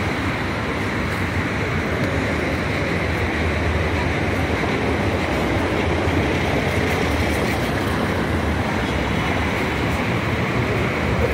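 Steady city traffic noise: a continuous low rumble with no distinct events.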